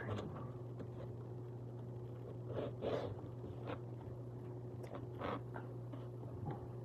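Eating sounds: a few short chewing and mouth noises, with the fork on the plate, over a steady low hum.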